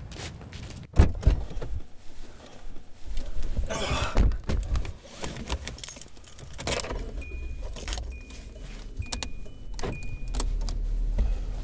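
People settling into a car: a sharp thump about a second in, rustling and keys jangling, a repeated high beep like a car's warning chime, and a low engine hum growing near the end.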